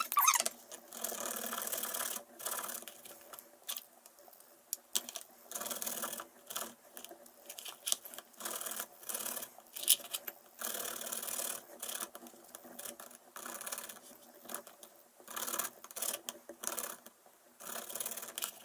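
Garlic cloves being grated on a hand grater: repeated rasping strokes of uneven length, with short pauses between them.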